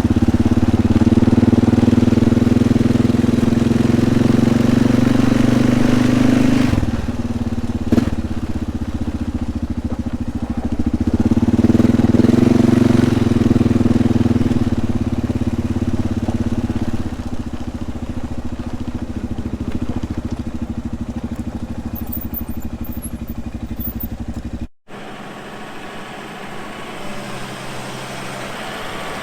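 Four-wheeler (ATV) engine running while it is ridden, swelling louder and easing off twice, with one sharp knock about eight seconds in. Near the end the sound cuts off suddenly and gives way to a quieter, steadier engine.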